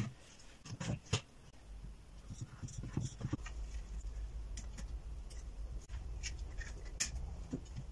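A hand-turned wooden wheel driving a wooden fan. A low steady whirr sets in about two seconds in, with scattered light wooden clicks and taps.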